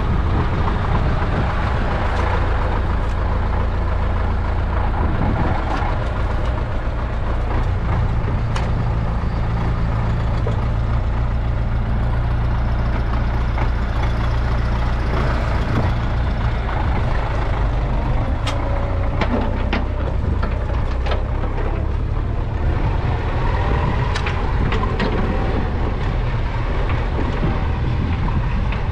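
YuMZ EO-2621 tractor excavator's diesel engine running steadily, with scattered sharp knocks and clanks from the digging work, most of them in the second half.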